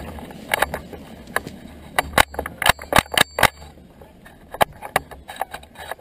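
Irregular sharp clicks, knocks and rattles of hunting gear being handled and moved, thickest in the first three and a half seconds and sparser after.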